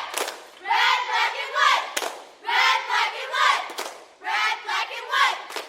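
A crowd of voices shouting together three times, each shout lasting about a second with a short gap between.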